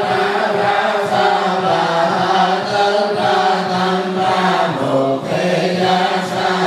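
Buddhist monks chanting a sutra together in unison: a steady, continuous recitation on held notes that step between a few pitches.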